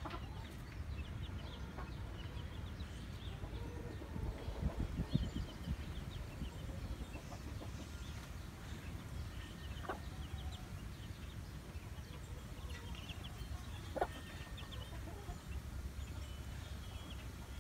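Australorp hen clucking among her young chicks, with the chicks' short high peeps scattered throughout over a low steady rumble. There are a few soft thumps about four to five seconds in and sharp ticks near ten and fourteen seconds.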